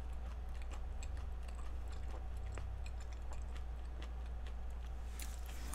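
Low steady hum with a few faint, scattered small clicks.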